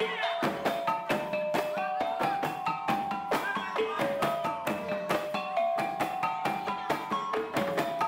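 Background music: a melody of short pitched notes over a steady percussive beat.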